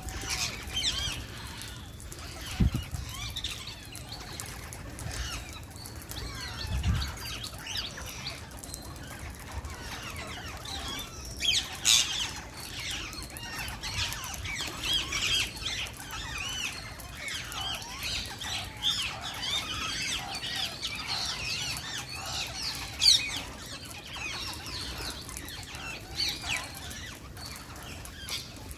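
Wild Indian green parakeets chirping, many short rising and falling calls overlapping without pause, as from several birds together. Two dull low thumps come in the first seven seconds or so.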